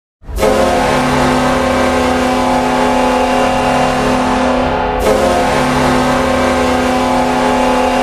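Buffalo Sabres arena goal horn sounding the signal for a goal: a long, steady blast starting abruptly about a third of a second in, then a second blast starting at about five seconds.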